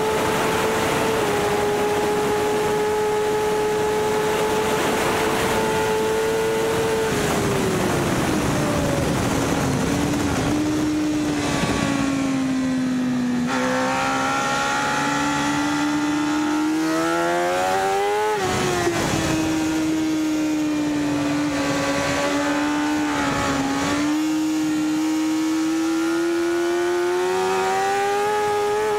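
BMW S1000RR's inline-four engine at high revs on track, with wind noise. The pitch holds high, falls steadily for several seconds as the revs come down, climbs again, dips sharply a little past the middle, then rises slowly toward the end.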